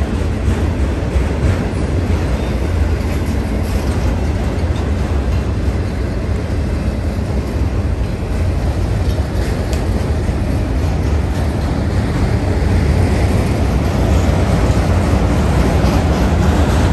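CSX freight train of loaded auto-rack cars rolling past close by: a steady, heavy rumble of wheels on rail that grows a little louder in the last few seconds.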